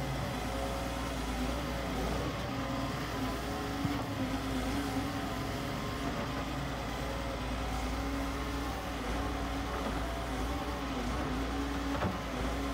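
Doosan DX140W wheeled excavator's diesel engine running steadily while the boom and bucket work, its pitch rising and falling slightly. A couple of light knocks, one about four seconds in and one near the end.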